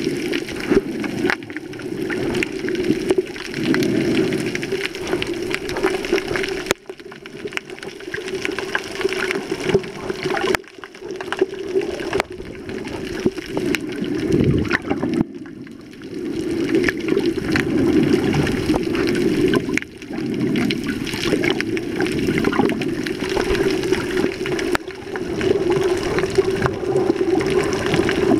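Muffled underwater noise picked up by a camera held below the surface: a steady low rush of water with scattered crackling clicks, dipping briefly a few times.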